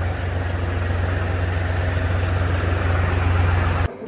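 Tractor engine running steadily with a deep hum, stopping abruptly near the end.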